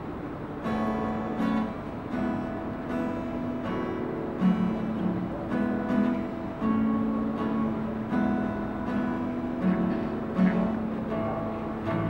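Acoustic guitar played solo in strummed chords, starting just under a second in, with a stroke about every three-quarters of a second and each chord left ringing.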